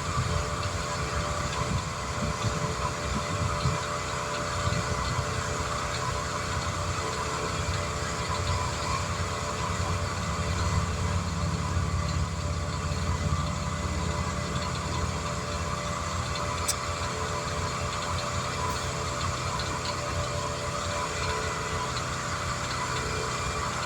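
An engine idling steadily, with a low rumble and an even hum, and a single sharp click about two-thirds of the way through.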